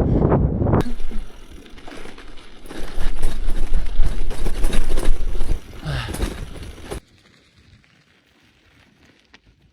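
Strong wind buffeting the microphone in uneven gusts, heaviest in the middle, then cutting off abruptly to near silence about seven seconds in.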